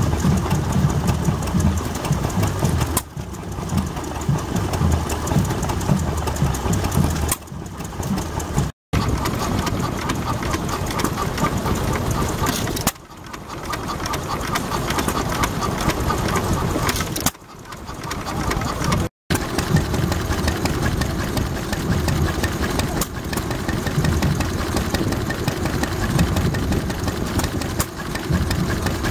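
Vintage stationary engines running, heard as a series of short clips of different engines that cut abruptly from one to the next. The last is a green Lister stationary engine.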